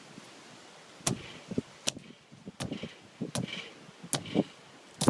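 Short, sharp knocks, about one every three-quarters of a second, as a potato is pushed and tapped down into the ground-sharpened top of a PVC potato cannon barrel.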